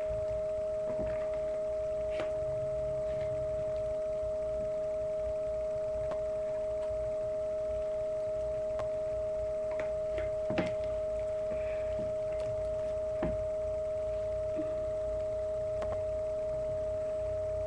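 A steady two-note tone hums throughout, with scattered light clicks and taps as a homemade paper-and-tape toy rifle is handled.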